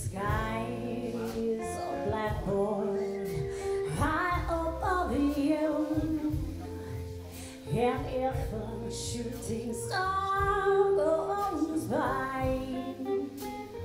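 A woman singing a slow song with a live band of semi-hollow electric guitar, electric bass and drum kit.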